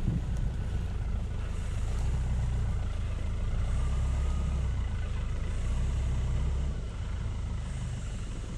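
Pickup truck engine running at low revs as the truck reverses slowly over grass, a steady low rumble that eases off about seven seconds in.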